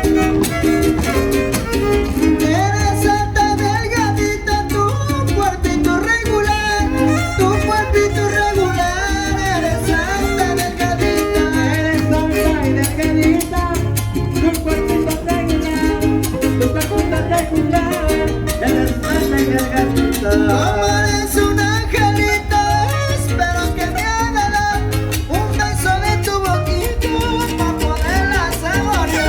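Trío huasteco playing an instrumental huapango passage: a violin melody with sliding ornaments over the steady strummed rhythm of the jarana huasteca and huapanguera.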